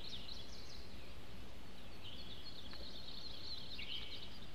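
Small birds chirping and trilling, several calls overlapping in quick high phrases, over a steady low background hiss.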